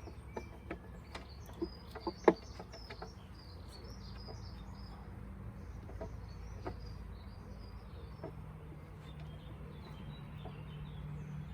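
Small birds chirping steadily in the background, with a few knocks from handling the hive in the first three seconds; one sharp knock comes about two seconds in. A steady low hum comes in near the end.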